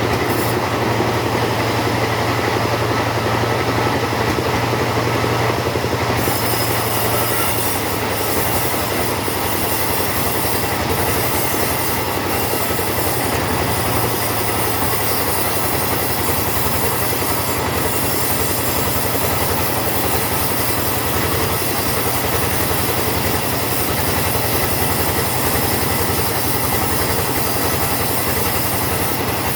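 Chainsaw running steadily under load, sawing a teak log into boards.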